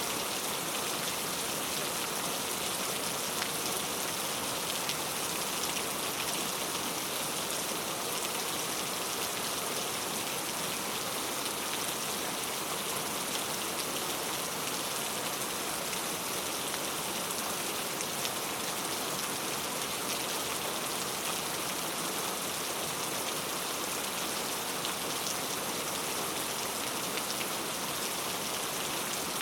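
Steady rain falling, an even hiss with no let-up, with now and then a single louder drop ticking.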